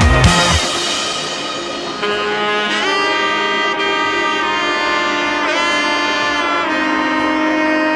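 Background music: a heavy low beat stops about half a second in, giving way to a melody of long held notes with a few sliding pitch bends.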